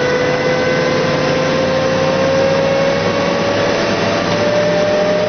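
Humvee driving, with engine and road noise under a steady high whine that creeps slowly up in pitch.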